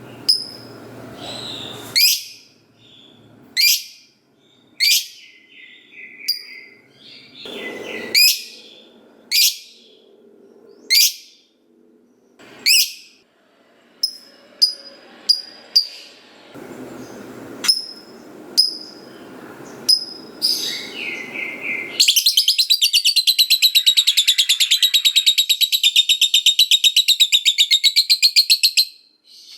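Lovebird calling: sharp, shrill single chirps every second or two, then, about three-quarters of the way through, a long, fast chattering trill lasting about seven seconds. That trill is the 'ngekek panjang' (long chatter) that lovebird fanciers prize in a lively fighter bird.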